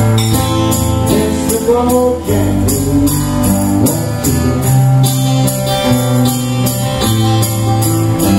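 Two acoustic guitars strummed together in a steady rhythm, ringing chords over bass notes that change every second or so.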